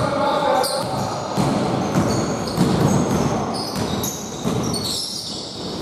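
Basketball bouncing on a hardwood gym floor during live play, with sneakers squeaking on the court between the bounces.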